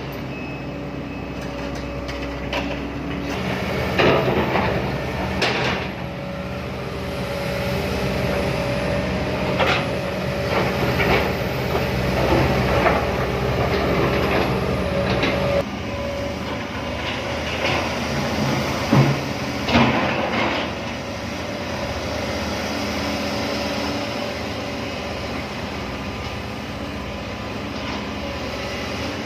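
Hydraulic excavator at work: its diesel engine runs steadily under a held hum, with sharp clanks and knocks at intervals.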